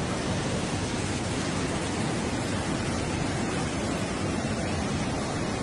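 Flash-flood water rushing down a wadi: a steady, unbroken noise of a churning muddy torrent.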